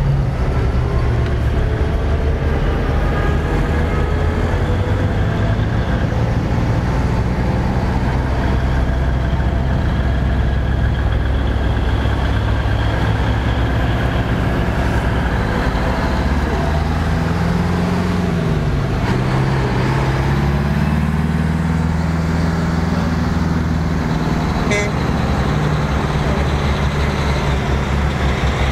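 Heavy trucks and vintage vehicles driving past one after another, their engines running steadily under load. Past the middle the engine note dips and rises again as a truck changes gear.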